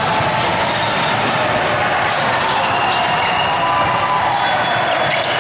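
Indoor team-sport game sounds in a reverberant hall: ball hits and thumps and players' movement over a steady background din, with some distant voices.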